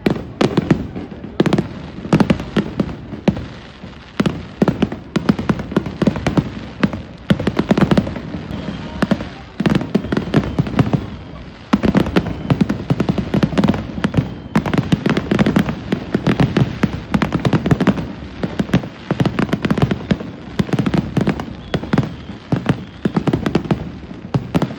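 Aerial fireworks bursting in a dense, continuous barrage, many sharp bangs close together with their echoes running into one another.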